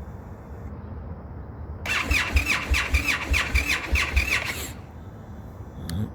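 Indian FTR's V-twin cranked by its electric starter for about three seconds, a rhythmic whirr with about four compression pulses a second, then stopping without the engine catching: the cold-start no-start fault.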